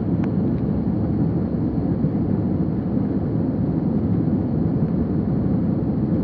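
Airliner jet engines and rushing air heard inside the passenger cabin during the takeoff: a steady, heavy low rumble.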